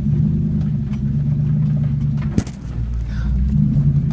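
Vehicle engine running steadily with a low drone, with one sharp knock about two and a half seconds in.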